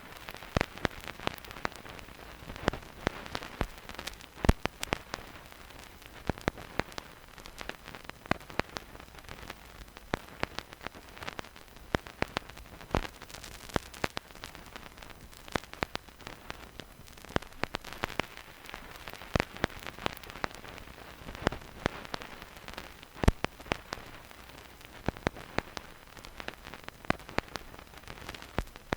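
Vinyl record surface noise with no music: a steady soft hiss with irregular clicks and pops from the stylus riding the groove, a few of them much louder than the rest.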